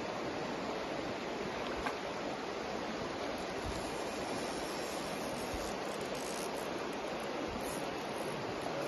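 Steady rush of a shallow river running over stones, with a single light click about two seconds in.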